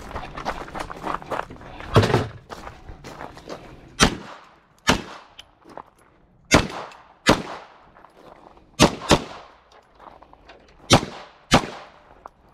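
Firearm shots fired singly at uneven intervals, nine in all, some in quick pairs about a third to half a second apart.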